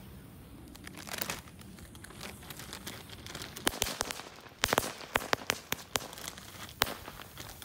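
Nico packet crackers (small F2 firecrackers) going off on the ground: one small sharp bang about a second in, then a scattered run of about nine more small pops over the next few seconds. The sparse, small bangs are judged a weak performance, "nicht mehr so der Burner".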